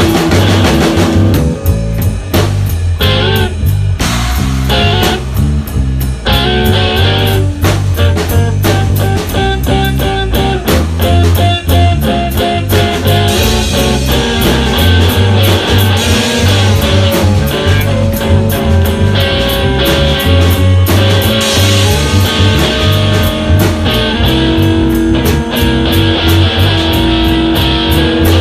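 A band playing a loose, psychedelic rock-jazz jam: guitar lines over a steady bass line and drum kit.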